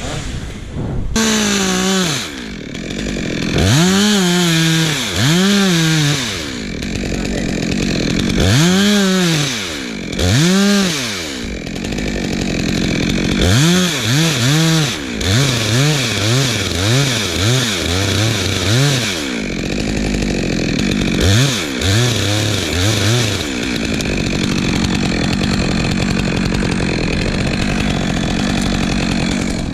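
Chainsaw revved up and down repeatedly, each rev rising and falling in pitch, with a run of quick short revs in the middle. It then runs steadily near the end.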